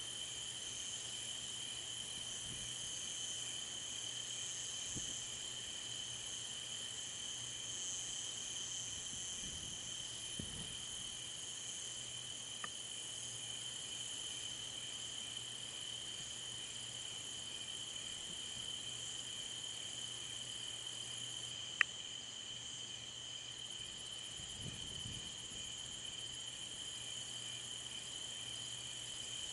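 Night-time insect chorus of crickets, a steady high-pitched trill that never pauses. A single sharp click comes about two-thirds of the way through, and a few faint low rumbles sit underneath.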